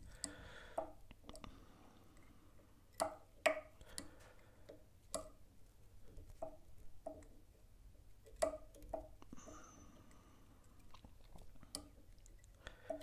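Faint, irregular small clicks and ticks of fine copper wire being wound by hand in tight turns around a fly hook's shank in a vise.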